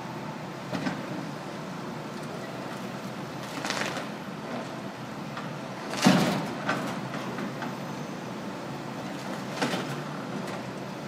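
Demolition excavators working: a steady engine hum with five sudden crashes and scrapes of rubble and masonry, the loudest about six seconds in.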